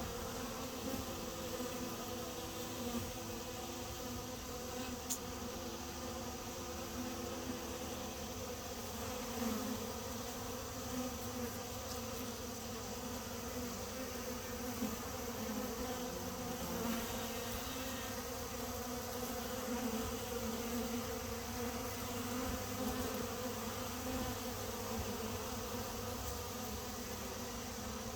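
Many bees buzzing together in a steady hum of overlapping wing tones.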